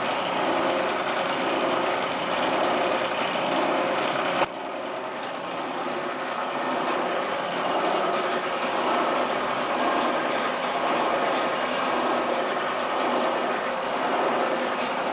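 Milling machine running steadily, its spindle turning. About four and a half seconds in there is a single sharp click and the level drops suddenly, then the steady running continues.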